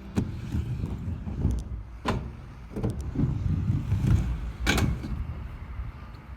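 Skateboard wheels rolling over concrete with a low rumble, broken by a few sharp clacks of the board.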